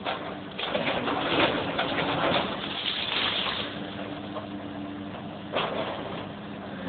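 Brick walls and masonry crashing and rubble clattering down as a Liebherr 944 long-reach demolition excavator tears into a building, over the steady hum of the excavator's diesel engine and hydraulics. The crashing is heaviest in the first half, with one sharp crash a little after the middle.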